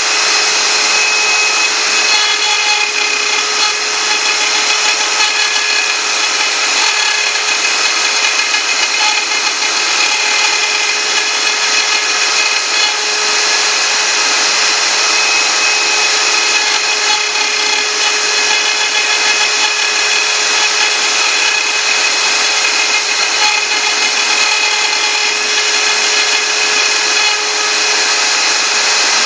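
CNC router spindle running steadily while its bit mills Thai lettering: a loud, even hiss with a constant hum underneath that does not let up.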